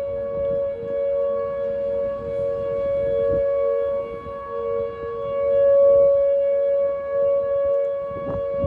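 Outdoor tornado warning siren sounding a steady held tone, two close pitches with overtones. It swells louder about six seconds in, then eases back.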